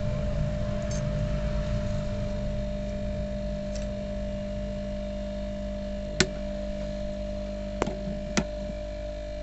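A steady hum with three sharp clicks in its second half, the last two close together.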